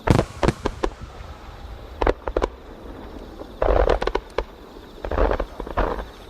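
Aerial fireworks shells bursting: a handful of sharp bangs in the first half, then two longer stretches of dense crackling.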